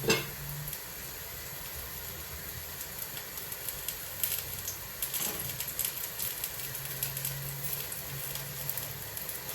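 Cottage cheese cakes (syrniki) frying in hot oil in a pan: a steady sizzle with scattered crackles and spits. A single knock right at the start.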